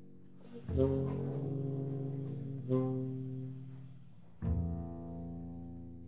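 Tenor saxophone and double bass playing free improvised jazz together: a series of long, low held notes, each new note entering with a strong attack, about a second in, near three seconds and about four and a half seconds in.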